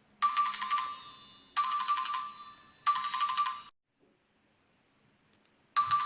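Nokia C6-00 ringtone: three ringing notes about a second and a half apart, each fading out, ending a little under four seconds in. The next ringtone starts near the end.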